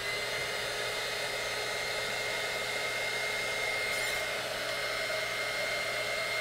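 Small heat gun blowing steadily: an even rushing hiss with a constant high whine, starting right at the beginning. It is heating shrink tubing over a receiver so the hot glue inside remelts and seals the receiver and its antenna leads.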